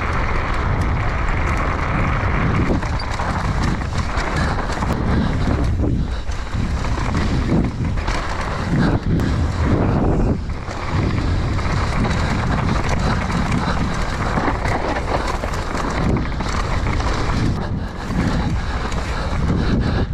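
Wind rushing over an action camera's microphone, with the rumble of a mountain bike riding fast down a dirt trail. The noise swells and dips irregularly.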